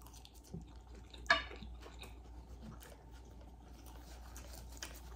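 Faint chewing and wet mouth sounds of a person eating a forkful of food, with one brief louder click about a second and a quarter in.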